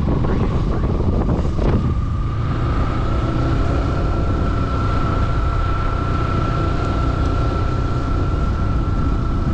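Motorcycle engine running on the move, with wind buffeting the microphone and a steady whine that rises slightly about two seconds in; a couple of brief knocks come near the start.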